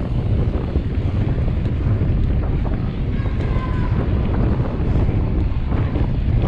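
Wind buffeting the microphone of a mountain bike ridden at race speed, over a steady low rumble of tyres on stone paving. A faint, brief high squeal comes a little after three seconds in.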